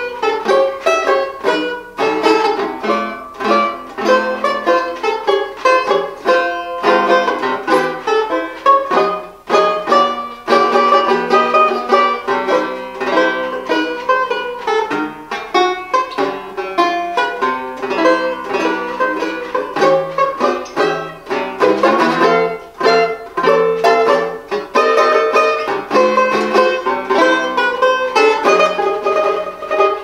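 Reger four-string tenor banjo played solo, chords and melody plucked continuously.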